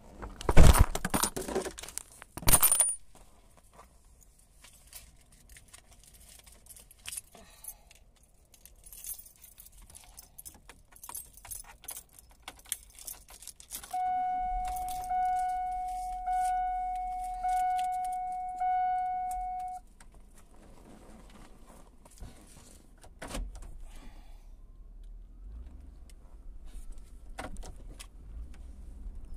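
Car keys jingling and two loud knocks at the start. About halfway through, the van's dashboard warning chime dings about five times, evenly spaced just over a second apart, then stops. A few small clicks follow.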